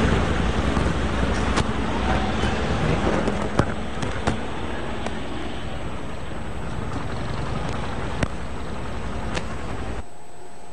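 Motor vehicles running close by, an engine rumble with road and traffic noise and a few sharp clicks. It drops off suddenly to a much quieter, steady hum near the end.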